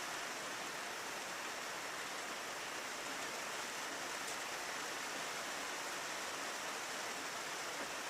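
Steady rain on a window, an even hiss with a few faint drop ticks.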